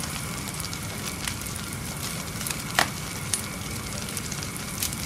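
Small open fire of dry palm fronds and sticks burning, with a steady hiss and scattered crackles and pops.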